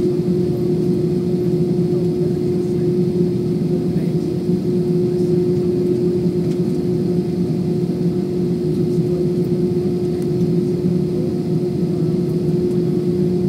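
Cabin noise of a jet airliner taxiing: a steady engine and air-system drone with a constant hum tone through it.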